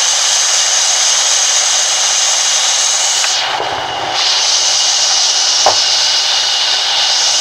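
Sawmill band saw running with a loud, steady hiss. The sound dips and changes briefly about halfway through, and a single sharp knock of wood comes about three quarters of the way in.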